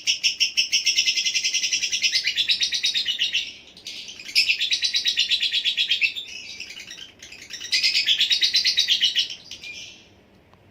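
Lovebird chattering: rapid, high-pitched chirps in three long bouts, with brief lulls at about three and a half seconds and about six seconds in, then tailing off near the end.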